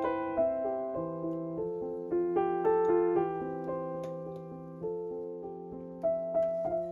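Solo piano background music, a gentle melodic line of single notes and chords with a sustained bass note.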